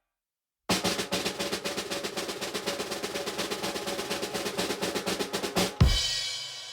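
Snare drum roll: rapid, even strokes for about five seconds, ending in a single loud accented hit that rings out and fades.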